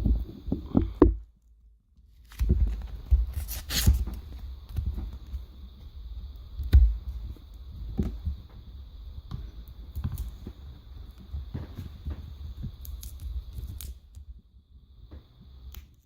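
Hands working open a phone screen protector's plastic packaging: irregular rustling, scraping and small clicks and knocks, with a brief pause about a second in. A faint steady high tone sits behind the handling.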